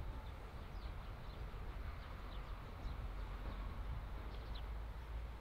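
Open-air field ambience: a steady low rumble of wind on the microphone, with faint short bird chirps now and then.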